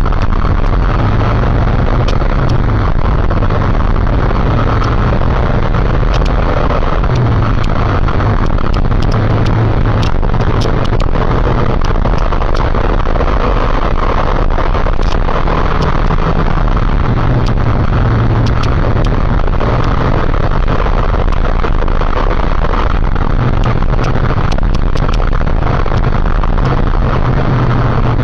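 Motorcycle running steadily at riding speed, with a loud, even rush of wind noise over the engine.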